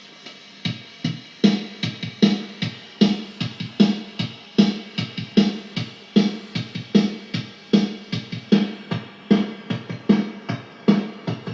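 Drum-machine beat played through a homemade lo-fi effects pedal with its sample rate reducer switched in. Strong hits come about every three-quarters of a second, with lighter ones between. A steady hiss from the unfinished pedal is heard before the beat starts, less than a second in.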